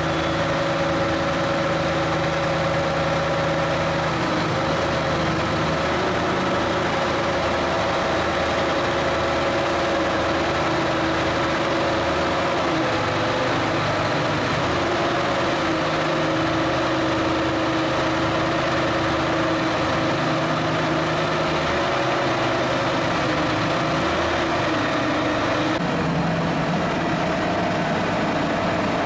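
Diesel power pack of a self-propelled modular transporter running steadily at low revs while the loaded transporter creeps forward, its engine note shifting slightly a couple of times.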